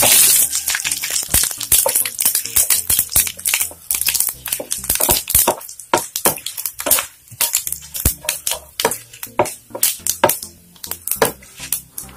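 Whole spices (fennel seeds, bay leaves, cloves, cinnamon, star anise and cardamom) crackling and popping in hot oil and ghee in a non-stick pan as a spatula stirs them. A rapid, irregular run of sharp pops, the sign that the spices are tempering in oil hot enough to add the next ingredient.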